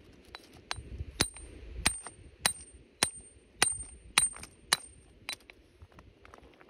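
Steel hammer striking a very hard beach rock: about ten sharp metallic clinks, roughly two a second, each with a brief high ring. The blows stop a little after five seconds.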